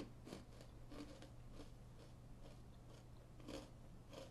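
Faint crunching of a person chewing a hard, crunchy sugar rusk, a double-fried bread snack coated in sugar and butter, in a string of short crunches a few times a second.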